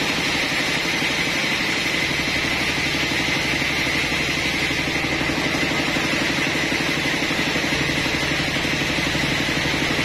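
Engine-driven sawmill running steadily while a large trembesi (rain tree) slab is pushed through the saw, a constant engine drone with a high hiss over it.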